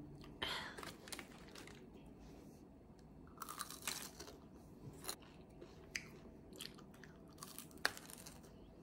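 A person chewing and biting crunchy food, with irregular crunches every second or so over a quiet background.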